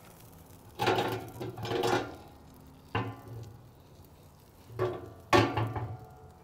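Metal clatter and scraping from a turkey hanger hook knocking against the rebar bars and steel drum of a Pit Barrel Cooker as the turkey is lifted out. There are a few scraping rattles, with sharp clanks about three seconds in and again about five seconds in.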